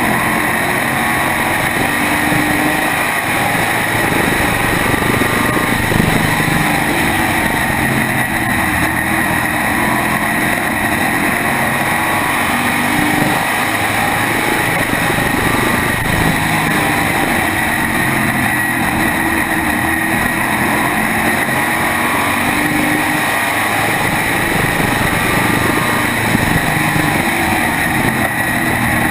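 SK modified race car's V8 engine running flat out at racing speed, heard from on board. The engine note rises and falls through the corners over a steady high whine.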